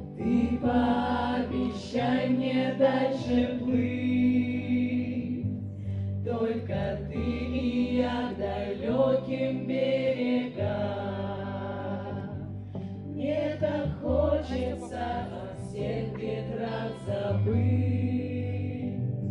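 A mixed group of men and women singing together into microphones over sustained low accompanying notes that change every few seconds.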